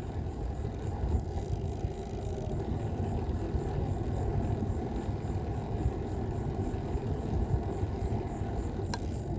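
Steady low rumble of riding a bicycle on a smooth asphalt trail, tyre and wind noise, with a brief click near the end.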